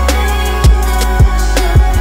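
Background music with a steady beat: deep bass drum hits about every half second over a sustained bass line and held notes.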